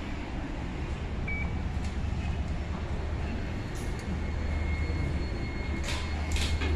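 Steady low hum of building background noise, with a few footsteps on the elevator car's metal checker-plate floor near the end.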